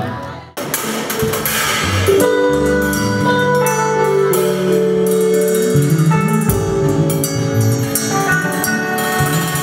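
Instrumental band music with a drum beat under held keyboard and bass notes; it drops out for a moment about half a second in, then carries on.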